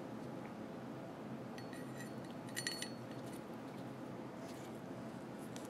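Steel bolt and bolt carrier parts of an AR-15-style rifle clinking together as the bolt is reassembled: a few light metallic clicks, the loudest a short ringing clink a little over two and a half seconds in, with a couple of fainter clicks near the end.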